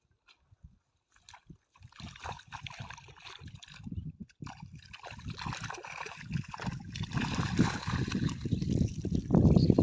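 Water sloshing and splashing, starting about two seconds in and building steadily louder.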